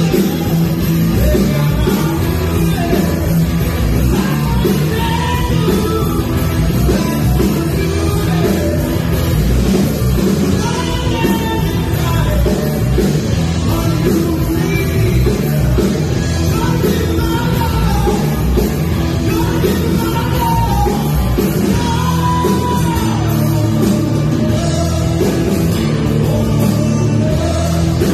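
Rock band playing loud with a singer's voice over electric guitar and drums.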